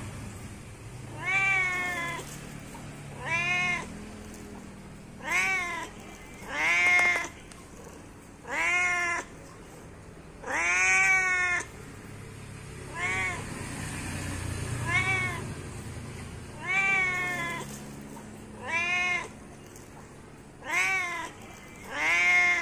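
A domestic cat meowing over and over, about one meow every two seconds, each call rising then falling in pitch; one near the middle is longer than the rest. These are calling meows, a cat calling to other cats.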